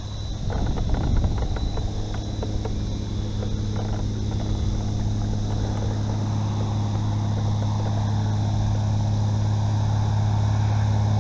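Bow-mounted electric trolling motor running with a steady hum that grows slightly louder, with a few light knocks in the first few seconds.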